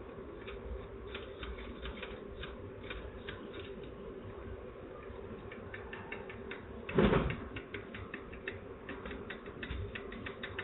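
Typewriter keys and typebars clacking in an irregular scatter of strikes as the machine is tried out for a typing fault, with one louder clunk about seven seconds in.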